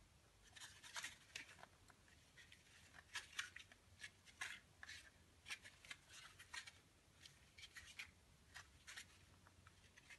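Faint, irregular clicks and scrapes of a hard plastic two-part mould being closed and squeezed in the hands, its halves rubbing and knocking together.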